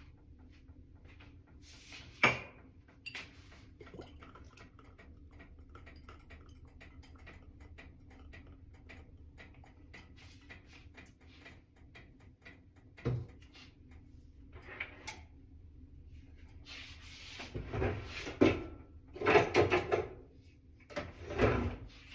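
Kitchen prep handling sounds: a few sharp knocks and clatters spread out, then a run of louder rustling, scraping bursts over the last five seconds, over a faint steady hum.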